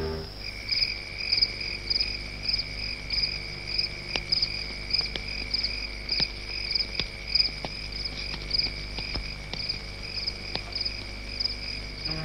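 Crickets chirping in a steady night chorus: a continuous high trill with sharper chirps repeating about twice a second, and faint scattered ticks.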